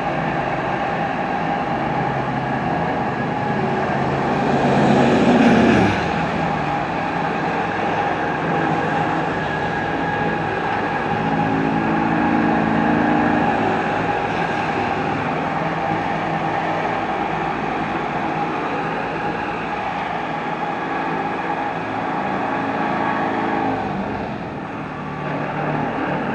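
Steady mechanical din of running engines and machinery with a constant hum, swelling louder briefly about five seconds in.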